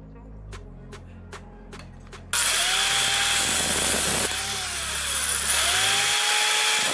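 A handheld electric disc cutter starts about two seconds in and runs loudly as it cuts into a water-pump motor capacitor, its whine sagging and recovering as the disc bites. Before it starts there are a few light clicks.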